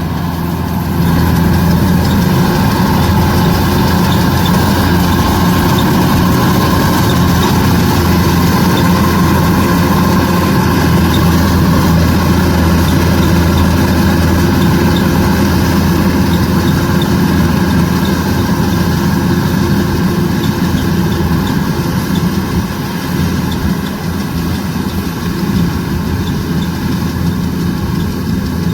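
Kubota DC105X combine harvester's diesel engine running steadily. It gets louder about a second in and drops a little in the last few seconds.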